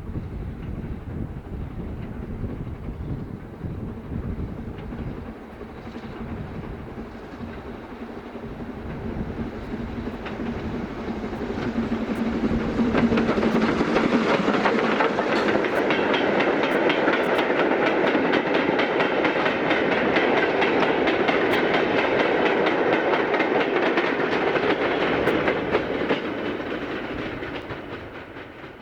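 Steam-hauled train passing on jointed track: a low rumble that builds to a loud, rapid clickety-clack of carriage wheels over the rail joints, then fades away near the end.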